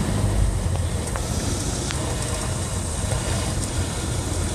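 Cessna 172SP's four-cylinder Lycoming engine running at low power on final approach, heard inside the cabin as a steady low hum with a rush of air and propeller noise over it.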